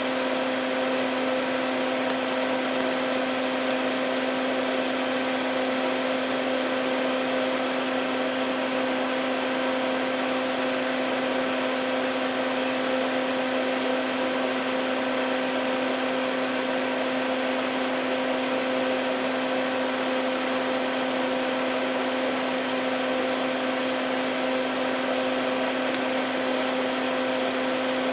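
Solder fume extractor fan running steadily: an even whir with a constant hum.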